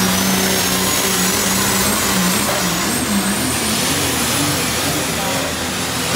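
Diesel pulling truck at full power dragging the weight-transfer sled. The engine note wavers up and down, and a thin high whine climbs steadily in pitch.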